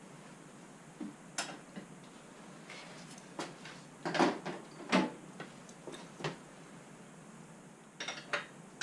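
Metal hand tools being handled: a scattering of short clinks and knocks, the loudest two about four and five seconds in, with a quick cluster near the end.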